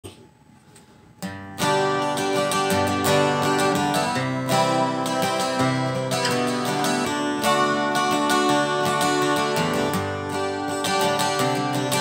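Steel-string acoustic guitar strummed: a rhythmic chord intro that starts about a second in, after a brief near-quiet moment.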